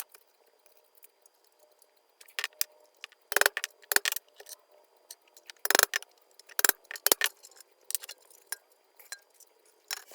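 Small metal parts clinking and clattering against a steel toolbox as it is reassembled: an irregular string of sharp clinks, the loudest in a cluster between about three and seven seconds in.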